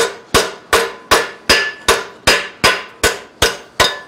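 Ball-peen hammer striking a small piece of steel held with pliers over the end of a steel pipe clamped in a vise, bending it into a U shape. Steady blows, about two and a half a second, each with a metallic ring that dies away before the next.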